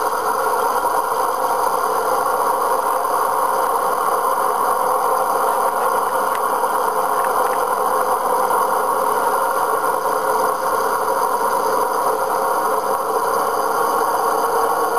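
Steady, unchanging drone of a Ford Trimotor's radial engines, heard through an old, worn film soundtrack.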